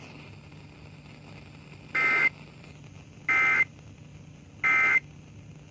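Emergency Alert System End-of-Message data bursts: three short, identical buzzy digital tone bursts about 1.3 s apart, marking the end of the warning. A faint steady low hum runs underneath.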